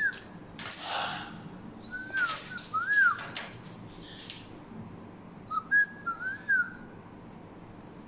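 Citron cockatoo whistling: short clear notes that rise and fall, in two brief phrases about three seconds apart. Harsh noisy bursts come between them, the loudest about a second in.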